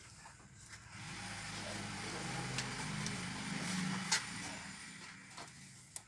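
A motor vehicle passing by: its engine and road noise swell about a second in and die away over the next four seconds. A sharp click is heard about four seconds in.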